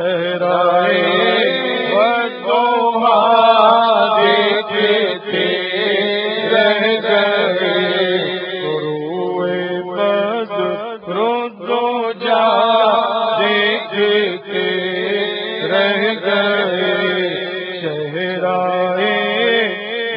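Male voices chanting a naat, an Urdu devotional song in praise of the Prophet Muhammad, melodic and unaccompanied by instruments, over a steady low drone.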